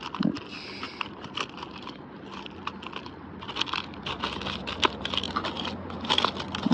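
Close handling noise of small fishing tackle, irregular clicks, crackles and rustling as split-shot weights are picked out and worked onto the line by hand.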